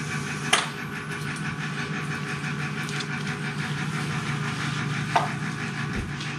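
Steady low machine hum, with a sharp click about half a second in and a smaller one about five seconds in as a gloved hand handles a stainless steel bowl and gauze on the surgical instrument tray.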